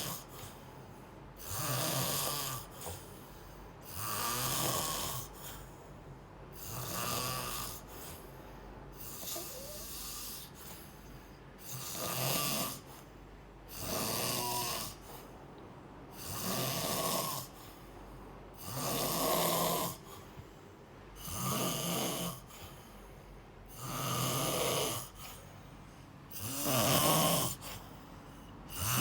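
Snoring: a sleeper's snores come regularly, about once every two and a half seconds, each lasting about a second, with quieter gaps between.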